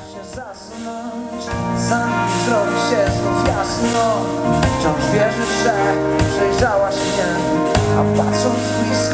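A live band playing with a singer: drums, keyboards and guitar. After a quieter opening, the bass and the full band come in about a second and a half in.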